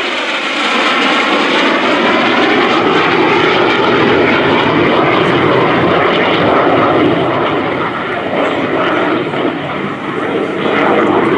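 MiG-17 jet fighter's turbojet making a high-speed pass, a loud continuous jet rush with bands in it that sweep down in pitch over the first few seconds as the jet goes by.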